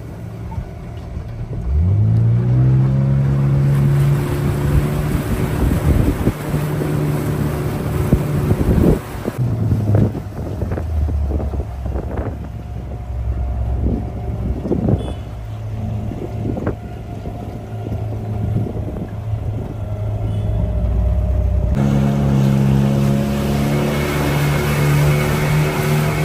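A motorboat's engine speeding up about two seconds in and running steadily. It drops to a lower, rougher speed with several thumps for a while, then picks up again near the end.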